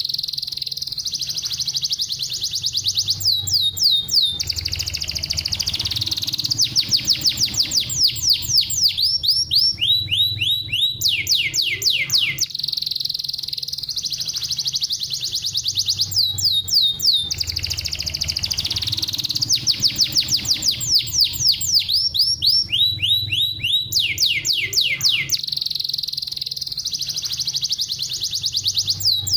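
Domestic canary singing a loud, continuous song of rapid trills: runs of quick falling sweeps alternate with long high rolling trills. The same phrase sequence repeats about every ten seconds, a looped training song (masteran) meant to set other canaries singing.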